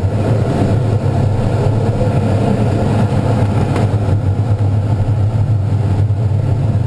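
Steady rushing airflow noise inside the cockpit of an ASW-19B glider flying at about 190 km/h with the air brakes closed, heard as a loud, even low rumble.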